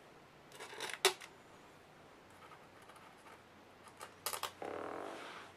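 Small clicks and scraping of a Phillips screwdriver driving tiny screws into a MacBook Pro's aluminium bottom case: a sharp click about a second in, a few faint ticks, then a cluster of clicks and a short rasp that fades near the end.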